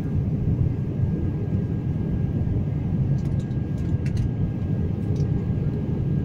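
Steady low rumble of an airliner's cabin noise in flight, with a faint steady whine above it and a few faint ticks about halfway through.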